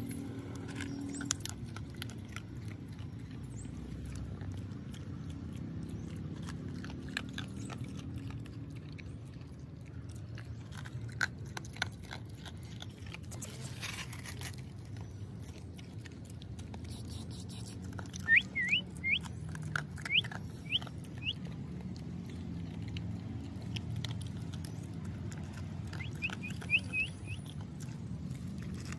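Dog crunching dry kibble from a steel bowl, a scatter of small crisp crunches over a low steady background. A few short high chirps come in quick runs about two-thirds of the way through and again near the end, the loudest sounds here.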